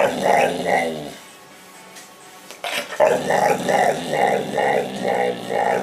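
Pit bull-type dog making 'talking' vocal sounds. A run of them comes in the first second, then a pause, then from about three seconds in a string of short repeated sounds, about three a second.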